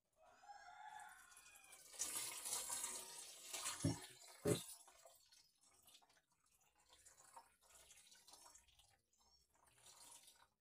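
Water splashing, with two heavy thumps about four seconds in.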